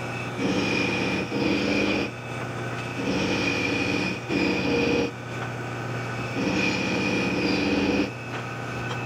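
Thread-cutting die cutting threads on a 4140 steel T-bolt blank in the lathe, over a steady motor hum; the cutting noise, with a held high ring in it, comes in spells of a second or two with short breaks between.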